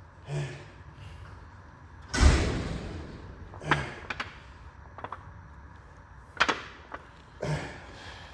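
A run of thuds and knocks from gym weights being lifted and set down, the loudest about two seconds in, with forceful exhales during the effort.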